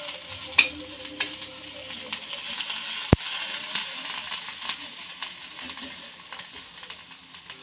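Ginger-garlic paste sizzling in a little oil in a stainless steel kadhai while a steel spatula stirs it, scraping and clicking against the pan. One sharp knock about three seconds in.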